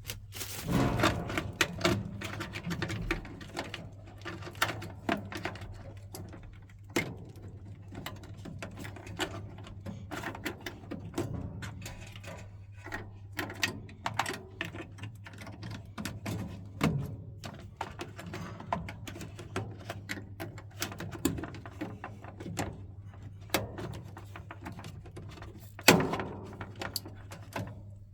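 Irregular clicks, knocks and clatters of parts and tools being handled while working on a gas boiler, over a low steady hum. One louder knock comes near the end.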